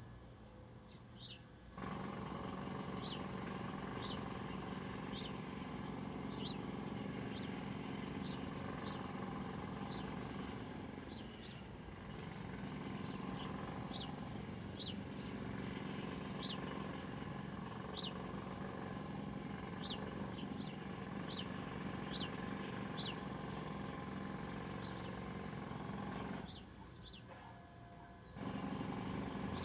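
A small bird chirping, short high chirps at irregular intervals of about a second, over a steady low rumbling background that drops out briefly near the start and again near the end.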